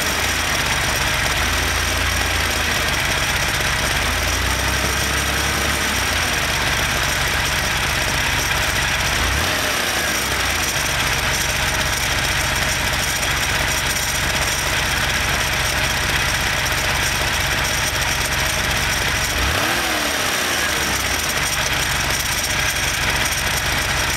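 Porsche engine running and being revved, its pitch rising and falling three times, near the start, about ten seconds in and about twenty seconds in. It has a ticking noise that tends to go away at higher rpm.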